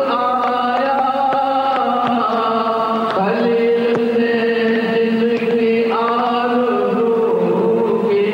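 A man's voice chanting a naat (Urdu devotional poem in praise of the Prophet) into a microphone, drawing out long, held melodic notes. The pitch shifts about three seconds in and again near six seconds.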